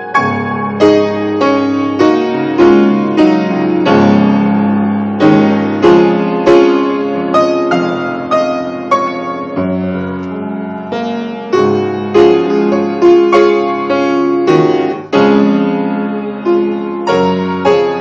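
Piano playing a continuous run of notes and chords, each struck note ringing and fading before the next.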